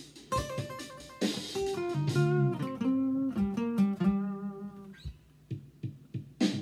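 Acoustic guitar playing a blues phrase: plucked single notes and short chords that ring out and die away about five seconds in. A near-quiet pause with a few faint string or finger taps follows, and a new chord strikes at the very end.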